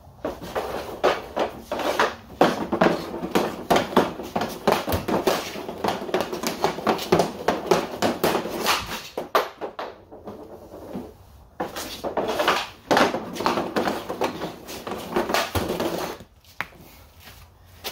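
Hockey stickhandling on a garage dryland floor: a rapid, continuous clatter of the stick blade tapping a puck and the hard floor, with a couple of brief pauses in the middle, stopping shortly before the end.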